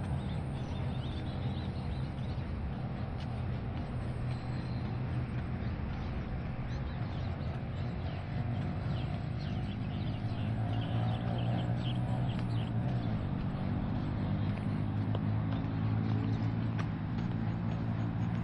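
A motor engine running steadily, its hum growing louder about halfway through and staying loud, with short bird chirps over it near the middle.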